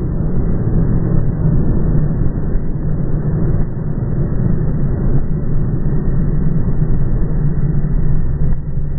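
Steady low rumble of a car heard from inside the cabin, with no clear changes or sudden sounds.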